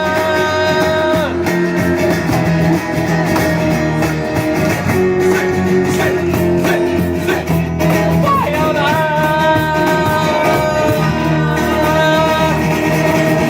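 Live blues-rock band playing with acoustic and electric guitars, bass and cajón. A long held note sounds at the start, and another comes in about eight seconds in.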